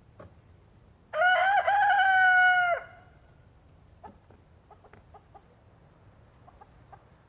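A rooster crowing once, a single loud, long, steady-pitched crow lasting under two seconds.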